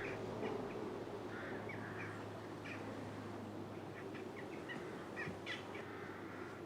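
Quiet outdoor ambience: birds calling in short, scattered chirps over a steady low background murmur.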